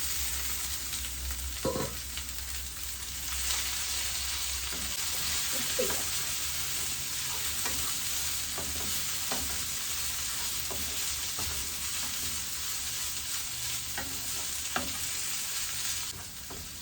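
Pre-cooked spiced beef sizzling steadily in hot oil as it is stirred in the pan, with a few short knocks of the spoon against the pan. The liquid is being fried off to dry the meat out.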